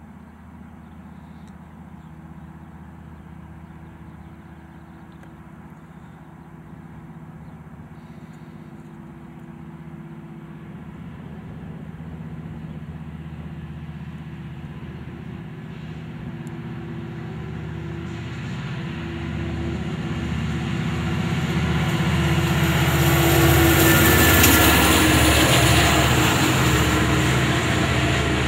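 Amtrak Pacific Surfliner passenger train led by an F59PHI diesel locomotive approaching, its engine drone growing steadily louder. It is loudest about 24 seconds in as the locomotive passes close by, then the coaches roll past.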